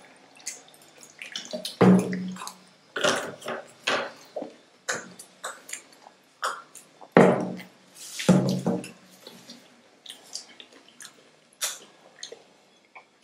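Water drunk from glasses close to the microphone: gulps and swallows of water, with small wet mouth clicks and glass taps between. Three louder gulps come about 2 seconds in and again around 7 and 8 seconds in.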